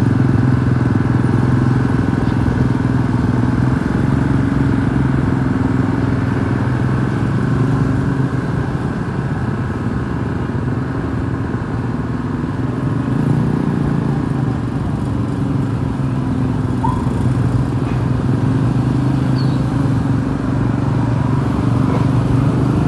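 Bus engine running steadily, a low even drone with no horn.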